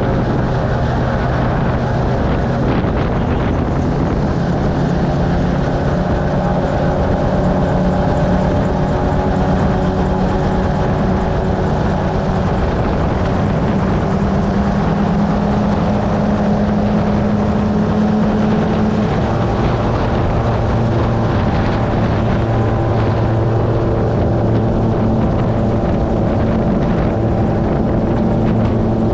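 Gyrocopter's engine and pusher propeller running at take-off power through the take-off roll and lift-off, with wind rushing over the open cockpit. The steady engine note shifts in pitch about halfway through.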